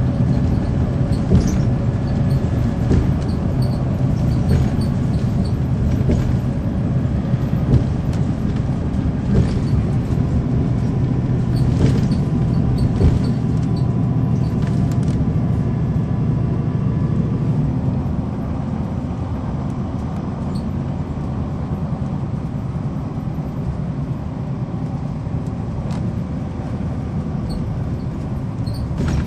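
Cabin sound on board a 2009 NABI 416.15 transit bus powered by a Cummins ISL9 inline-six diesel: the engine runs with a steady low drone, with occasional clicks and rattles. About eighteen seconds in, the engine drone eases and the sound gets a few decibels quieter.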